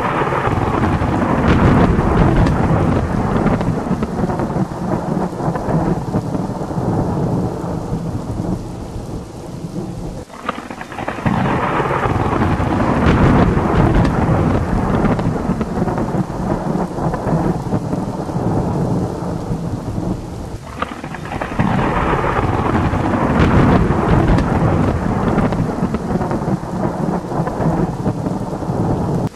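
Thunderstorm: steady heavy rain with rolling thunder. Three long rolls come about ten seconds apart, each opening with a sharp crack and then slowly fading.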